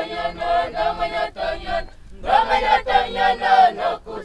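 A group of voices singing together unaccompanied, a chant-like song in two phrases with a short break about two seconds in.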